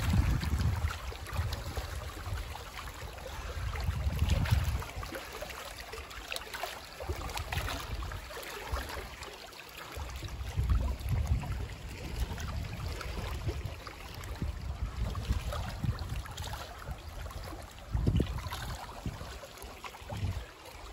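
Wind gusting on the microphone in low rumbles that come and go, over small waves lapping at a lake shore.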